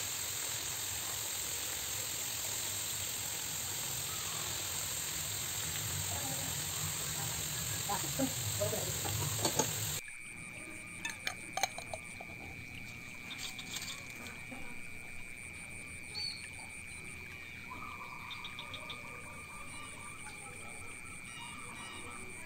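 Coconut milk cooking down in a wok until its oil separates, sizzling steadily, with a few light knocks of the utensils against the pan. About ten seconds in it cuts off suddenly to quieter ambience: a steady high-pitched tone and faint scattered chirps.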